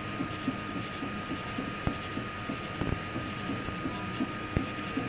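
Ultimaker 3D printer printing: steady fan hiss with a constant whine, under short whirring strokes from the stepper motors about three times a second as the print head moves. Three sharp clicks come about two, three and four and a half seconds in.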